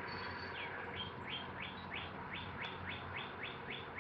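A bird singing a series of about a dozen short whistled notes, each sliding downward, that come slightly faster as it goes on.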